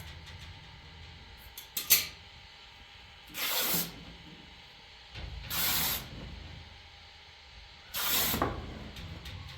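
A sharp click, then three short hissing sprays, each about half a second long and spaced roughly two and a half seconds apart.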